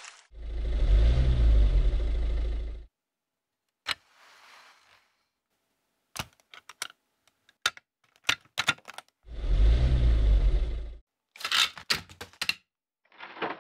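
Lego Technic bricks clicking and clattering as they are handled and pressed into place, in short sharp clicks. Twice, a loud deep steady sound about two and a half seconds long cuts in, once at the start and again identically about nine seconds in.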